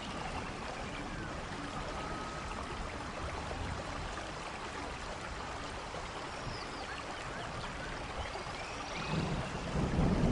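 Steady rainforest rain, a dense even hiss of falling water, with a few faint high bird chirps. A low rumble builds in near the end.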